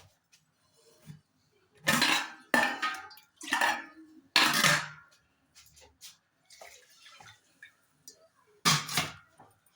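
A spoon scraping and clattering against a metal cooking pot while dal curry is stirred: four sharp strokes in quick succession, then one more near the end.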